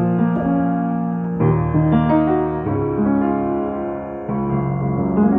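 1941 Steinway console upright piano being played: a slow passage of full chords, each struck and left to ring into the next.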